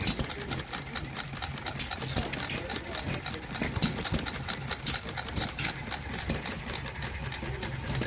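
Small scale-model gas engines running with a rapid, busy mechanical clatter of clicks over a low steady rumble.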